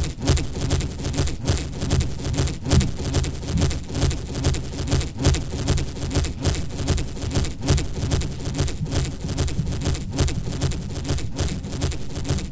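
Experimental performance soundtrack: a low droning hum under a dense, rapidly flickering hiss, broken by short dips at irregular intervals.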